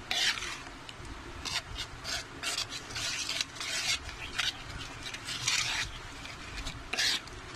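Steel spoon stirring and scraping a thick mixture of mango pulp, cornflour, sugar and water around a pan, in a run of irregular scraping strokes.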